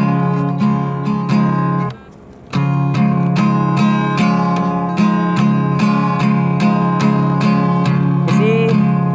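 Acoustic guitar strummed in a steady rhythm, about two strums a second, with a short break about two seconds in.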